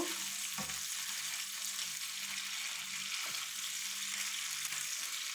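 Chicken pieces sizzling in hot oil in a frying pan as they brown, a steady hiss, with a couple of faint knocks.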